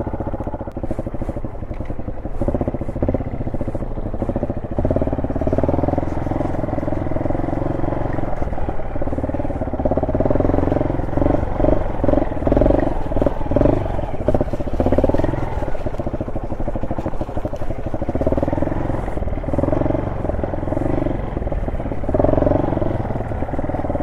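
Honda SL230's single-cylinder four-stroke engine running at low speed off-road, its pitch rising and falling as the throttle is opened and closed in short bursts, most often in the middle and near the end.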